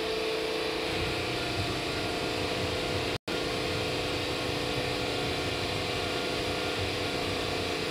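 Industrial machinery running steadily: a constant multi-tone hum over a continuous hiss, broken by a split-second total dropout about three seconds in.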